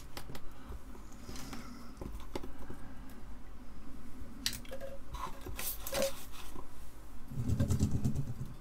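Handling noises at an electronics workbench: scattered light clicks, taps and rustles of small objects being picked up and set down, busier about halfway through, with a short low rumble near the end.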